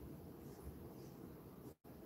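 Near silence: faint low room noise, broken by a brief total dropout near the end.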